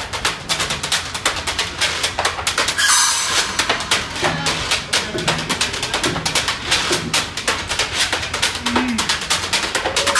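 Live acoustic jazz from a street band of upright bass, banjo, fiddle and drums, the drums keeping a busy, steady beat under plucked bass notes.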